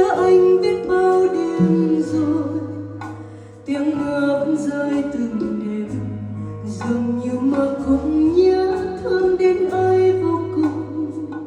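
Music from a slow Vietnamese song: plucked guitar over long bass notes that change every two seconds or so, with a gliding melody line on top.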